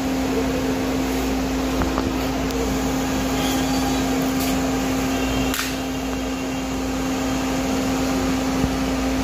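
Steady machine hum with one constant tone, like a fan or air conditioner running, with a couple of faint clicks of hand tools against the splitter, the louder one about halfway through.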